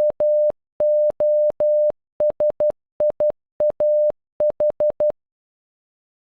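Morse code played as a single steady mid-pitched beep keyed on and off in short dots and long dashes. It sounds out the end of the J, then O, S, I, A, H of "Josiah" (.--- --- ... .. .- ....), and stops about five seconds in.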